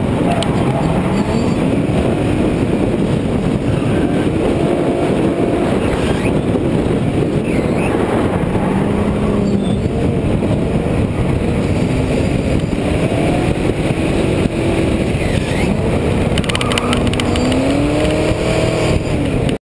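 Drift car's engine revving up and down through the corners, over a steady heavy rushing noise. The sound cuts off abruptly near the end.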